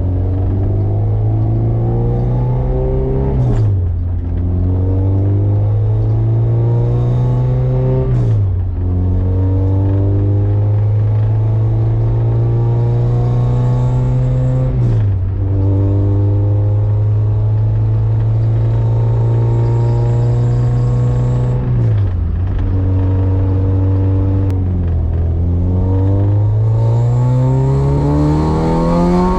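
Honda Civic's swapped H-series four-cylinder engine pulling under acceleration while driving. The revs climb slowly in each gear and drop sharply at four gear changes, the last pull rising toward the end.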